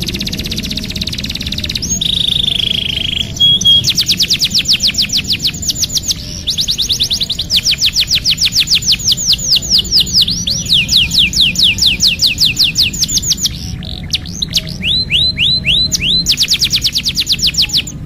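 Domestic canary singing a long song of rolled trills, each a fast run of quickly falling whistled notes, with a short held whistle about two seconds in and a brief break near the end.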